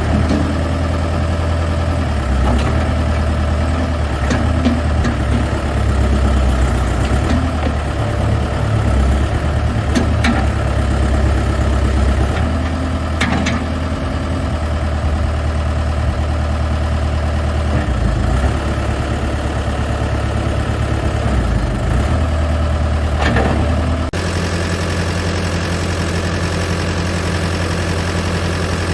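Diesel engine of a Case 580SM Series 2 loader backhoe running, its note wavering up and down, with a few sharp clanks. Near the end it changes abruptly to a steady, even run.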